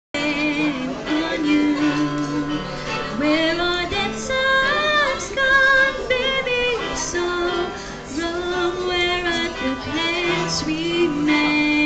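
Amateur female voices singing a pop love-song cover, the held notes wavering with vibrato, over a steady electronic organ accompaniment.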